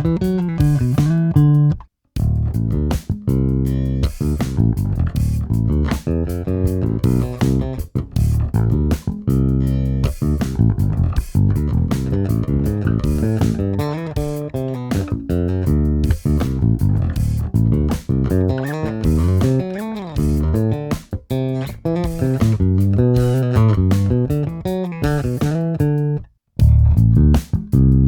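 Warwick Corvette $$ NT five-string bubinga electric bass played in a continuous run of plucked notes and lines. The playing stops dead twice for a moment, about two seconds in and near the end.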